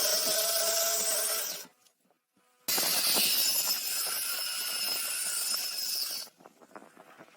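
A tool cutting into wood with a steady scratchy rasp, in two stretches: one breaks off abruptly under two seconds in, and after a second of silence a second runs for about three and a half seconds before stopping.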